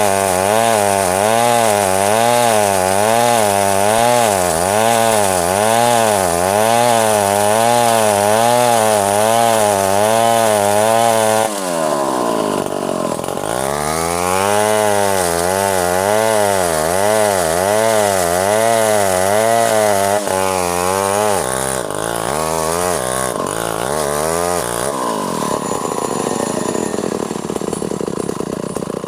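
Chainsaw cutting into an ironwood tree under load, the engine pitch rising and falling about once a second as the bar works in the cut. About eleven seconds in the engine speed dips sharply, then picks back up and keeps wavering, less evenly near the end.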